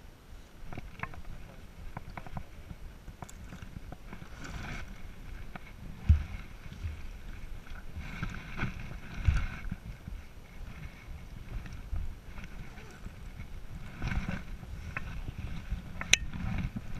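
Footsteps crunching over rocky ground while clothing and pack gear rustle and brush close to the microphone, with scattered clicks and a few heavier thumps.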